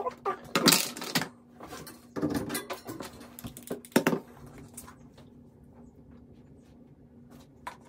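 Rustling and handling noises, with one sharp click about four seconds in, over a faint steady hum.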